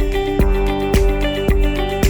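Background music with a steady beat and plucked guitar notes.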